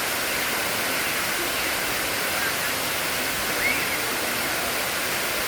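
Steady rushing of Sai Yok Noi waterfall, an even hiss of falling water, with one short high chirp about three and a half seconds in.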